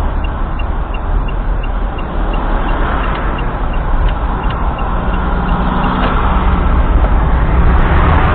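Car driving, with steady road and engine noise. A faint regular ticking comes about two to three times a second.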